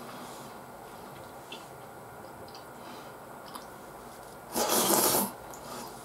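A person eating curry rice with a spoon: a few faint spoon clicks and quiet chewing, then, about four and a half seconds in, a loud, noisy breath lasting under a second.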